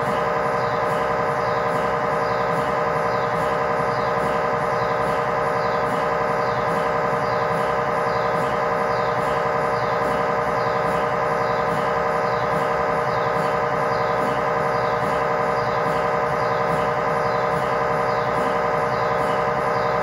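GE MRI scanner's gradient coils running an axial T1 fast spin echo (FSE-XL) sequence: a loud, steady, buzzing drone of several stacked tones, with a faint pattern repeating about twice a second.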